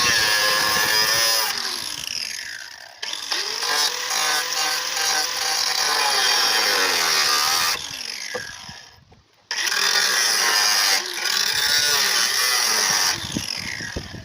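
Handheld electric power tool working on metal, running in three bursts with short stops about 3 and 9 seconds in. Its pitch sags under load and recovers.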